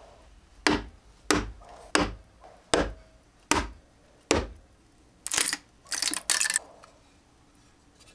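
Wood chisel chopping down into mahogany: six sharp knocks, one every two-thirds of a second or so, as the CNC-cut track piece is cut free. Then three short scraping bursts.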